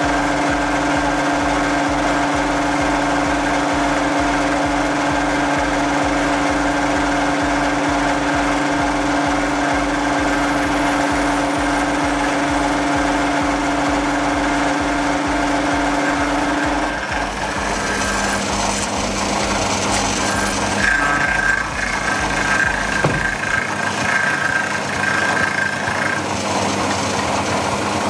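Bench mill-drill running, its spinning cutter milling a metal workpiece held in a vise: a steady motor hum and whine with the grind of the cut. The pitch and mix of tones change about two-thirds of the way through.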